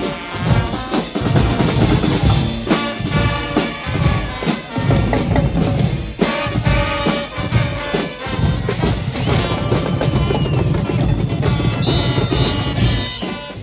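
Guggenmusik band playing live and loud: trumpets, trombones and sousaphones over drum kits, bass drums and cymbals, the drums driving a dense steady beat.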